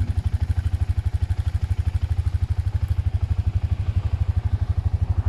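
2001 BMW F 650 GS's 652 cc single-cylinder four-stroke engine idling, a steady, rapid, even pulse.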